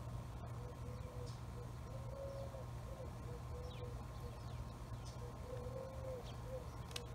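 A dove cooing in low, soft notes: a run of short coos, with a longer drawn-out coo about two seconds in and again near six seconds. Faint high chirps of small birds and a steady low hum sit underneath.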